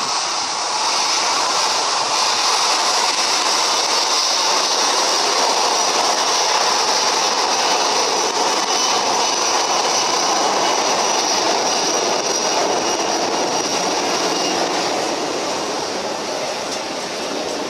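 Jet engines of a Boeing 737-300 freighter (CFM56) running as it rolls past close by on the runway: a loud steady rush with a high whine over it, easing off near the end as it moves away.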